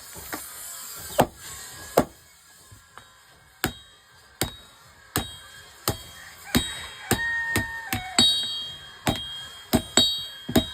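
Blacksmith's hammer striking metal, driving a punch to make a hole: about a dozen sharp blows at irregular intervals of roughly a second or less, each with a short, high metallic ring.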